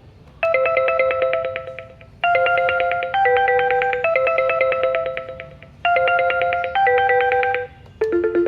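Grandstream GRP2601P IP desk phone playing one of its built-in ringtones: a fast pulsing electronic trill that steps between two pitches, repeating in bursts of about two seconds. A different ringtone starts near the end.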